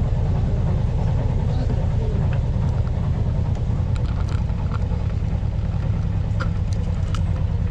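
Canal trip boat's engine running steadily with a low rumble as the boat moves along. A few faint, short high ticks come through partway in.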